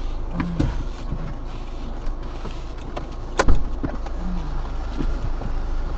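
Car slowing to a crawl, heard from inside the cabin: a steady low engine hum with scattered light clicks and knocks, the loudest a single sharp knock about three and a half seconds in.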